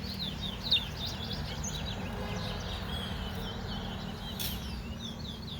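Caged towa-towa seed finches singing in a song contest: a run of rapid, high twittering notes over a steady low hum.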